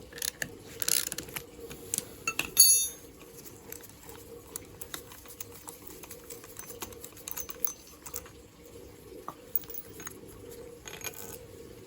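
Small metallic clicks, taps and rattles of hand tools and loose metal parts being handled, with one sharper ringing metal clink about two and a half seconds in, over a faint steady hum.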